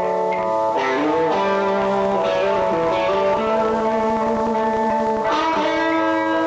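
Electric guitars playing held chords together, the chord changing every second or two.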